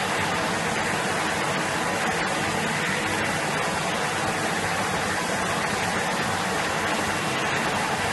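Steady, even machine noise of a workshop, like a motor or extraction fan running, with a few faint light taps as board pieces are handled.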